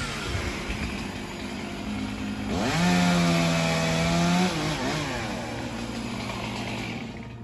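Chainsaw engine revving up sharply about two and a half seconds in, held at full throttle for about two seconds, then dropping back down.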